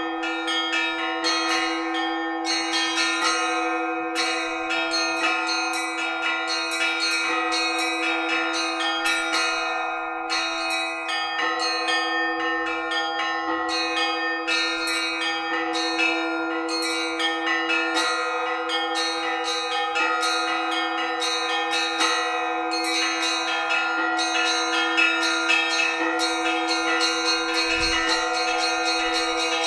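Orthodox church bells ringing a festive Bright Week (Easter) peal: small bells struck in quick, busy patterns over the steady hum of two deeper bells.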